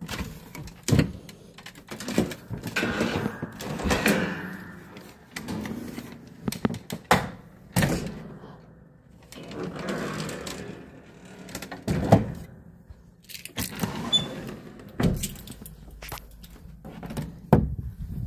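Wooden interior and closet doors being opened and shut by hand: irregular knocks and thuds, with sliding and rubbing sounds in between.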